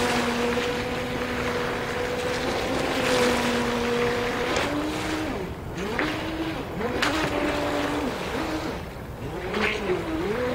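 Brushless-motor Turbo Vee 2 RC speedboat running on the water: a steady motor whine that dips and rises in pitch again and again in the second half, over the hiss of spray with a few sharp splashes.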